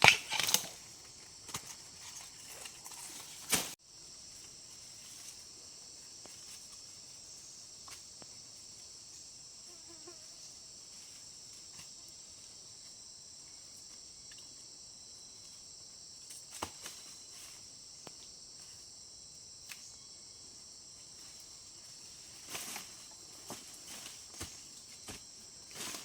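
Steady, high-pitched insect chorus, starting about four seconds in after rustling and a couple of sharp knocks; a few light knocks and rustles come later.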